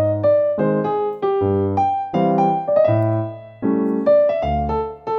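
Background music: an upbeat electric-piano tune with a bass line, a new chord or note struck several times a second.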